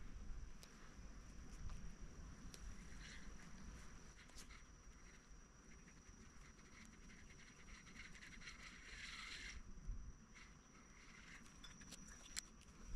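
Near silence: faint outdoor ambience with a steady high-pitched whine and a few faint clicks.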